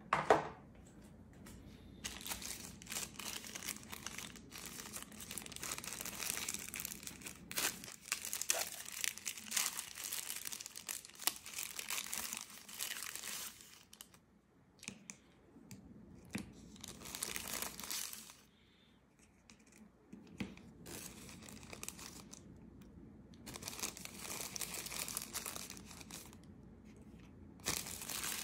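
Tissue-paper wrapping rustling and crinkling as it is unwrapped and crumpled by hand from small bike-mount adapter plates. It comes in irregular bursts with short pauses, and there is a sharp knock right at the start.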